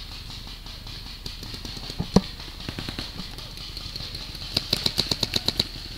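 A pellet-firing game gun shooting: one sharp shot about two seconds in, then a rapid string of about ten shots, roughly nine a second, near the end.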